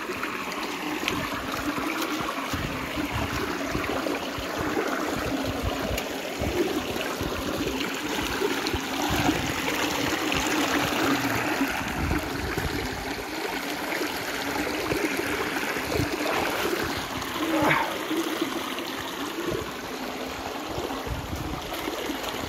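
Shallow mountain stream running and trickling over stones, a steady babbling of water heard from right beside it.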